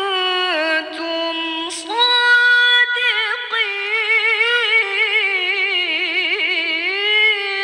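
A woman reciting the Quran in melodic tilawah style, a high, melodious voice drawing out long ornamented notes with rapid wavering turns. After a brief break about two seconds in, she comes back on a higher held note.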